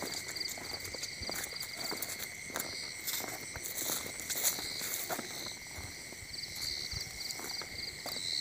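Footsteps crunching and rustling through dry grass and brush at an irregular walking pace. Insects sing over them: a steady high drone and a pulsed cricket-like trill that fades out early on and returns about two-thirds of the way through.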